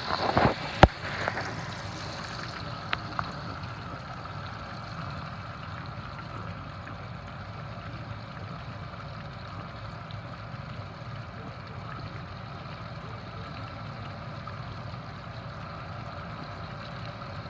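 Lobster pieces frying in hot oil in a skillet: a steady sizzle and bubbling, with a few sharp knocks about a second in.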